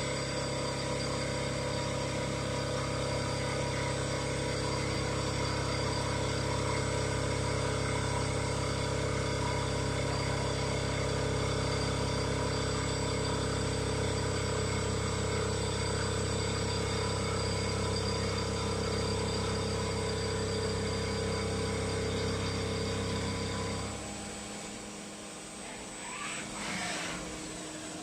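SP8126 vertical CNC machining center running: a steady mechanical hum made of several held tones. It drops away about 24 seconds in, leaving a quieter background with a short brief sound near the end.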